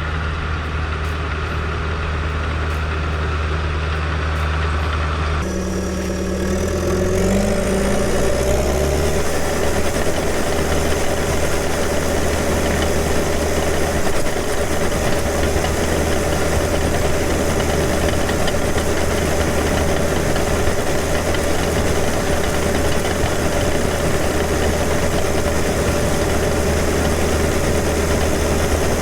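John Deere 450H crawler dozer's diesel engine running steadily at low speed. About five seconds in it revs up, the pitch rising over a couple of seconds, and then runs on steadily and louder at working speed.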